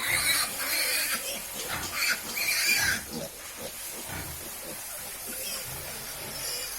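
White farm pigs squealing, with several loud high squeals in the first three seconds and quieter pig noises after.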